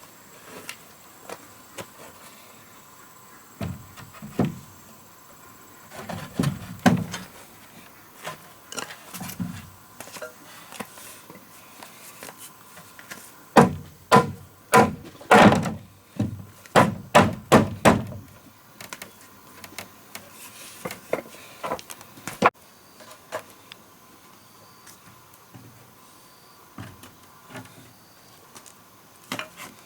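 Irregular wooden knocks and thuds, typical of log-building work, with a quick run of loud strikes around the middle.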